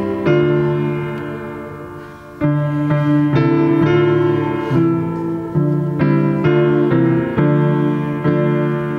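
Solo piano playing slow, quiet-paced chords, each struck and left to ring and fade.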